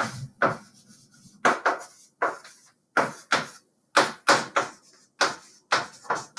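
Writing on a board: a run of short, scratchy strokes and taps at an uneven pace, about one or two a second.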